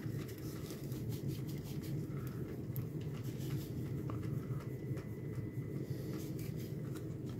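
Multimeter probe tip being rubbed on a paper towel to polish off oxide: faint, irregular scratchy rubbing strokes over a low steady hum.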